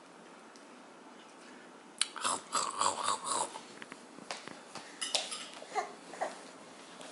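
A baby babbling and breathing noisily, with sharp clicks and rattles from the plastic snack box on her hand, starting about two seconds in.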